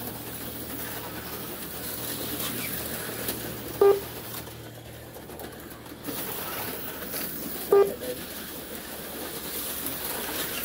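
HO-scale slot cars running on a plastic track with a steady whir. A short pitched beep cuts through about every four seconds.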